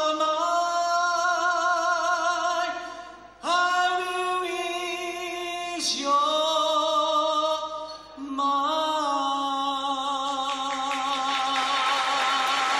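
A man singing into a microphone in long held notes with vibrato, with short breaks between phrases. Applause rises under his last held note near the end.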